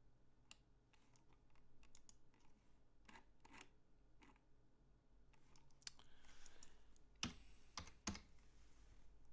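Faint typing on a computer keyboard, with mouse clicks: scattered short keystrokes, and three louder strikes near the end.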